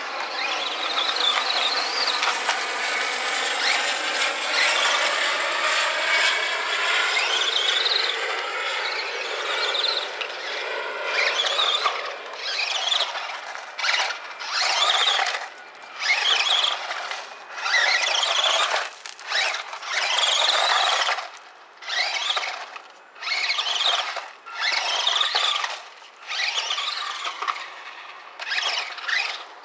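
Brushed electric motor of a 1/18-scale HPI Maverick ION MT RC monster truck whining as it drives, the pitch rising and falling with the throttle. After about ten seconds the whine comes in short throttle bursts, roughly one a second, with gaps between.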